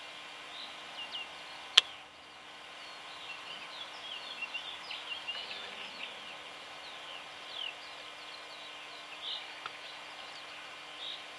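Small birds chirping and calling in many short high notes scattered throughout, over a faint steady hum, with one sharp click about two seconds in.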